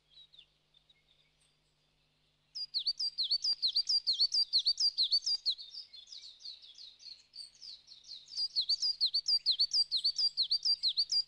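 A small bird calling a fast series of high, hooked chirps, about five a second, in two long runs with a quieter stretch between them.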